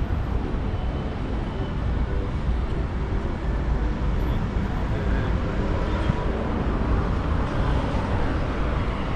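Steady road traffic noise from cars on a wide multi-lane city street.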